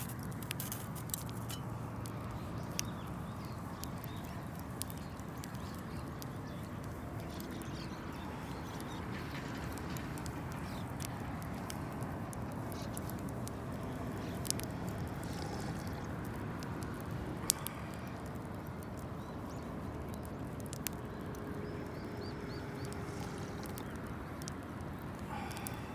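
Wood campfire burning: a low steady rumble with scattered sharp crackles and pops.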